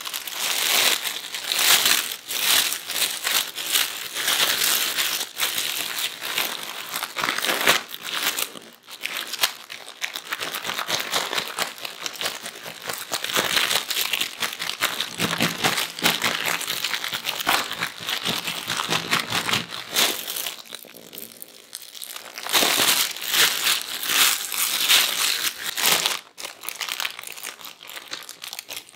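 Thin plastic food bag crinkling and rustling as it is shaken and kneaded by hand, tossing boiled potato cubes in corn flour to coat them. The crinkling eases briefly about two-thirds of the way through, then comes back louder.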